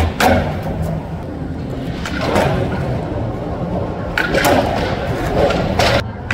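Skateboard wheels rolling on concrete, broken by several sharp clacks of the board popping and landing.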